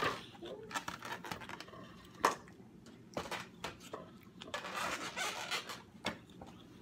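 Close-miked chewing of crunchy water chestnut: irregular crisp crunches and wet mouth sounds, with a sharper crunch a little over two seconds in and a denser run of chewing around five seconds.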